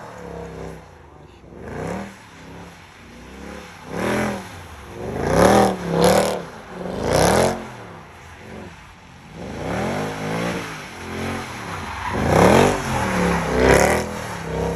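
Mercedes-Benz C63 AMG's 6.2-litre V8 revved up and down again and again, about seven loud surges, as the car spins donuts on wet tarmac with its rear tyres spinning.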